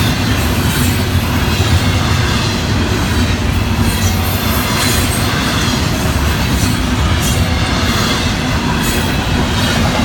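Florida East Coast Railway double-stack container cars rolling past close by: a steady, loud rumble of steel wheels on the rails.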